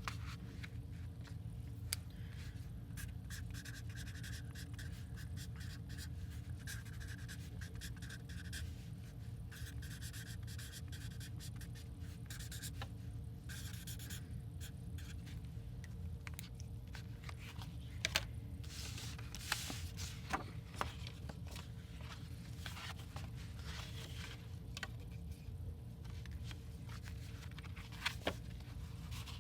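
Hands working with paper and craft supplies: scratchy rubbing and scraping on paper, like writing or folding, with a few sharp taps and clicks, over a steady low room hum.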